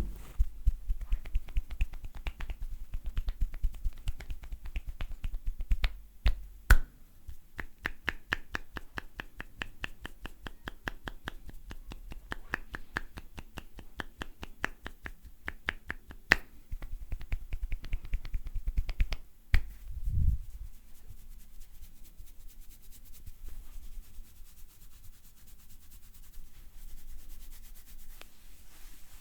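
A barber's hands striking in quick percussive massage strokes: a fast run of sharp claps and taps, several a second, that stops about two-thirds of the way through after a dull thud, followed by fainter rubbing of hands on skin and hair.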